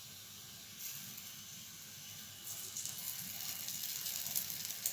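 Beaten egg and oil sizzling on a hot tawa under a paratha: a faint hiss that turns into denser crackling about halfway through.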